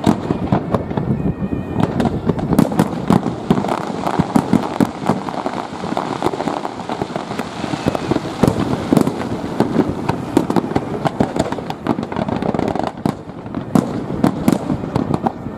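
Fireworks display: a dense, continuous barrage of bangs and crackles, many sharp reports close together over a steady rumble, easing off briefly near the end.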